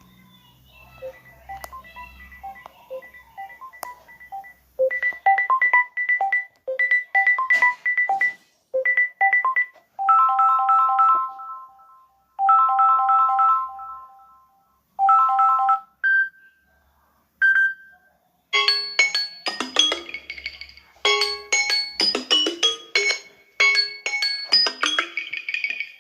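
Samsung Galaxy A32 ringtone: an electronic melody of short, clear notes played in repeated phrases with brief pauses between them. It starts softly, and a busier tune with many quick notes begins about two-thirds of the way in.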